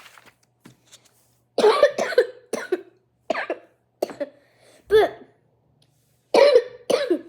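A girl coughing repeatedly: a string of short, separate coughs spread over several seconds.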